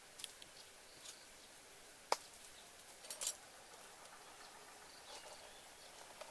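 Faint handling noises: a few light knocks and clicks as a mortar and pestle and a woven basket are handled, the sharpest knock about two seconds in, with soft rustles of dry leaves underfoot over a steady faint outdoor hiss.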